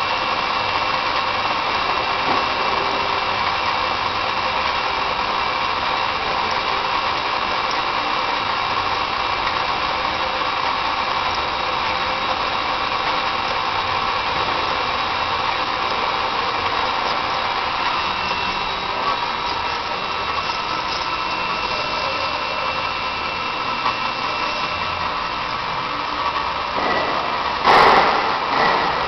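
A motor-driven machine running steadily, a whirring hum with several steady tones over a noisy rush. A short louder clatter comes near the end.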